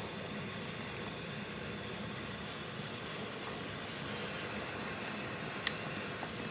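Bean-and-water mixture heating in an electric pressure cooker's pot on sauté mode, coming back to a boil: a steady bubbling hiss with faint small pops and one sharper tick near the end.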